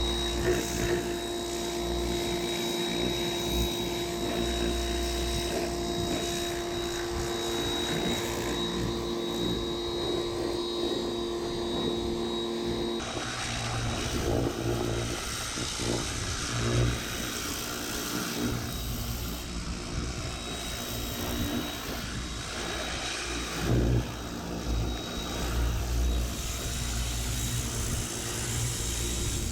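Pressure washer running with a steady drone. About halfway through, the sound changes abruptly to a rougher, noisier run with irregular surges.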